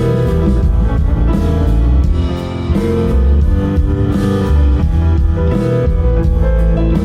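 Live band playing a song's instrumental intro, with guitar over bass and drums keeping a steady beat.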